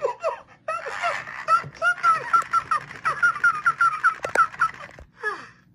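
T.M.X. Tickle Me Elmo toy's recorded voice laughing through its built-in speaker in a rapid, even run of short "ha" syllables, about four or five a second. A sharp click comes about four seconds in, and a short falling vocal sound near the end.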